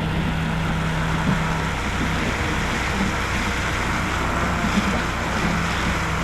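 A small motor running steadily under a constant rushing noise; its low hum drops away about two seconds in.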